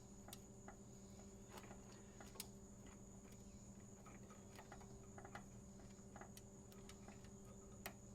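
Near silence: a faint steady high-pitched tone and low hum, with a few scattered faint clicks of light handling.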